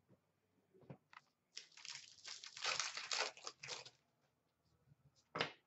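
Crinkling and rustling of a plastic card sleeve as a trading card is handled and slid into it, with a faint click about a second in and a short rustle near the end.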